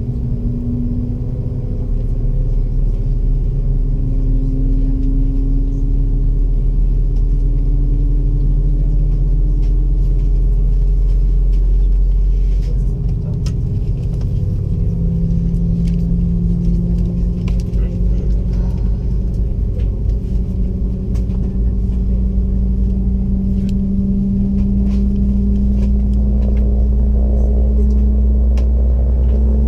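Low, steady rumble of an Airbus A330 heard from inside the passenger cabin on the ground, with engine and air-system hum tones slowly drifting upward in pitch.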